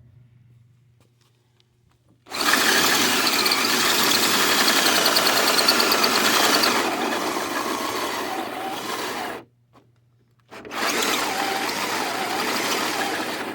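Cordless drill driving a hole saw through a camper trailer's wall, run in two long bursts with a short stop between; the first burst weakens toward its end as the drill's battery runs low.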